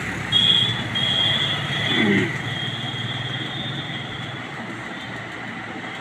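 A motor vehicle engine running, loudest near the start and slowly fading, with a thin high tone over it for the first few seconds.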